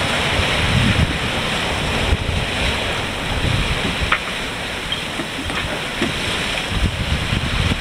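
Waves rushing and breaking along the hull of a sailboat under sail, with wind buffeting the microphone: a steady hiss with gusty low rumbles.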